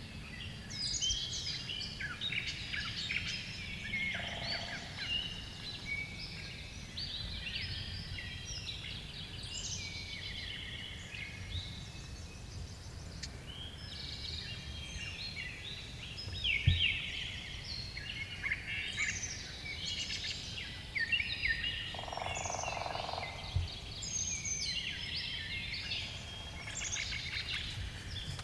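Dense chorus of songbirds singing overlapping chirps and trills, over a steady low rumble, with a sharp thump about two-thirds of the way through.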